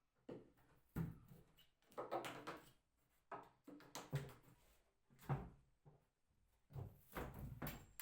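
A series of soft, irregular knocks, thuds and scraping handling noises, a few each second, with short gaps between them.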